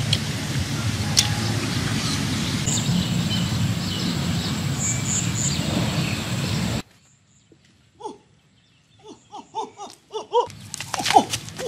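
Steady outdoor background noise with a few sharp clicks and a thin high chirping in the middle, cut off abruptly about seven seconds in. After that it is quiet apart from faint short calls and rustles, which grow busier near the end.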